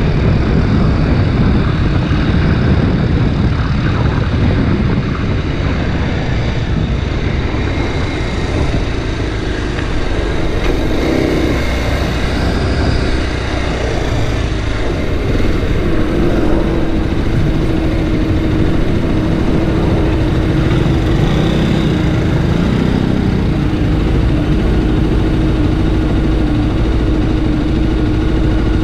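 Kawasaki Ninja 250 RR Mono's single-cylinder engine running on the move, under heavy wind rush on the camera microphone. About halfway through, the engine settles into a steady note.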